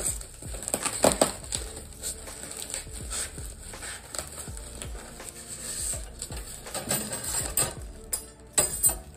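Unpacking metal lamp hardware from a styrofoam packing box: plastic wrapping rustling and small parts clinking, with a couple of sharper knocks, about a second in and near the end.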